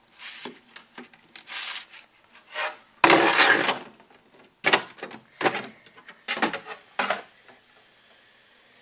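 A large plastic Lego model tank being handled: irregular scraping and rubbing noises in short runs, the loudest about three seconds in.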